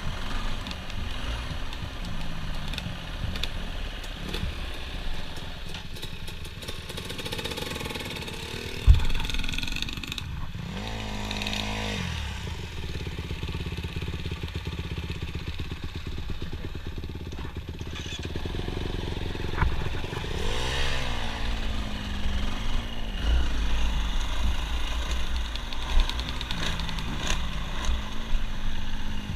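Dirt bike engines running on a trail, mostly at low revs, revving up and back down twice. A single sharp knock stands out a little before the first rev.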